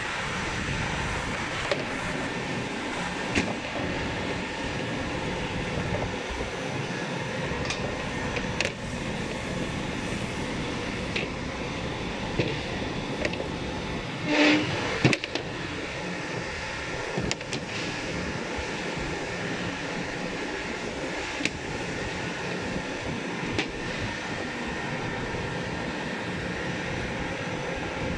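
MSG1300 P4A2C2 wide brush sander running steadily while white-painted panels ride through on its conveyor rollers under the brushes: a dense, even machine noise. Scattered light clicks, and a brief louder clatter about halfway through.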